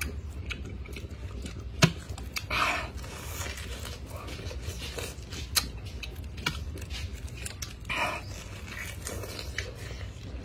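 Mouth sounds of eating fresh pineapple close to the microphone: biting, chewing and sucking the juicy flesh, with a few sharp clicks and smacks, over a steady low hum.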